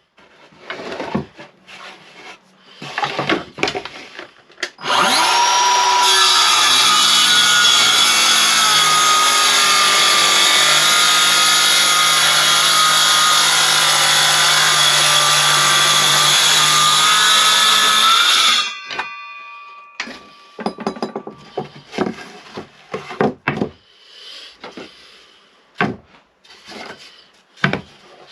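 Circular saw started up, whining up to speed, running through a cut for about thirteen seconds, then switched off and winding down. Knocks and handling of the wood before and after.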